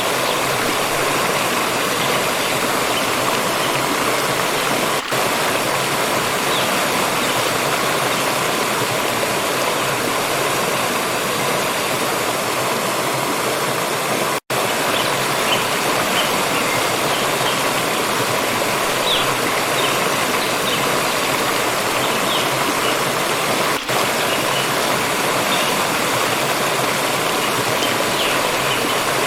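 Steady rushing and splashing of a water stream, with a split-second dropout about halfway through.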